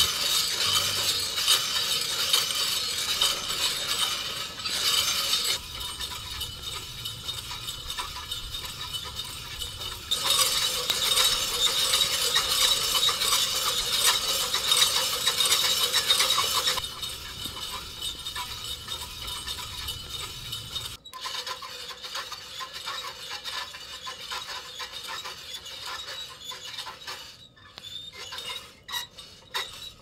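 Coffee beans rattling and clinking as they tumble inside a hand-cranked wire-mesh drum roaster turned over a campfire. The rattle is dense and busy for much of the time, then fainter in the last third with separate clicks.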